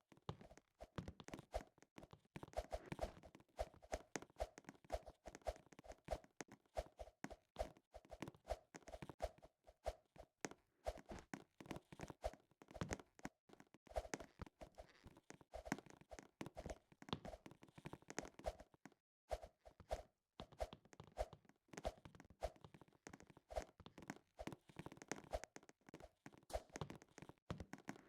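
Many quick, light clicks and taps in an irregular stream, with a brief pause about nineteen seconds in.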